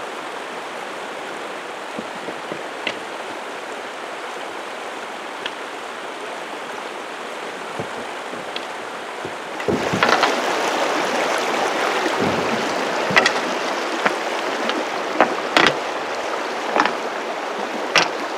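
River water rushing steadily, getting louder and fuller about ten seconds in, with scattered sharp knocks and clicks over it, more of them toward the end.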